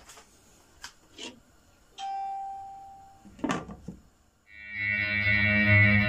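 A glass pot lid with a metal rim is set down on a pot, giving one clear ring that dies away over about a second, followed by a short clatter as it settles. Guitar music with effects comes in loudly about four and a half seconds in.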